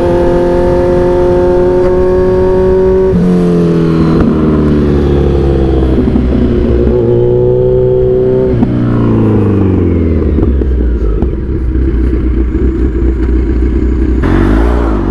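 Kawasaki Z1000's inline-four engine heard from the rider's seat, running under throttle at a fairly steady pitch that steps down and eases several times. About eight and a half seconds in it winds down to a low rumble as the throttle closes and the bike slows, with a brief rush of wind noise near the end.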